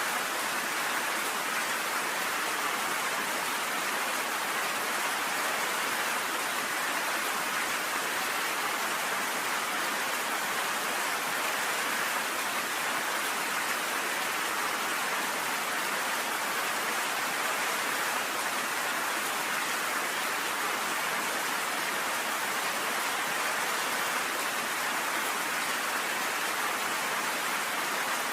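Heavy rain falling steadily on a cabin porch, an even hiss of drops with no thunder.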